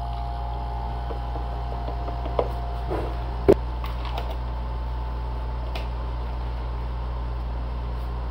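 A steady low hum with a few light clicks and one sharp knock about three and a half seconds in: a straw stirring a drink in a clear plastic tumbler and knocking against its side.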